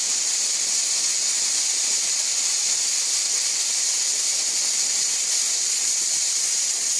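Stovetop pressure cooker hissing steam from its vent under the weight: a loud, steady hiss that stops abruptly near the end.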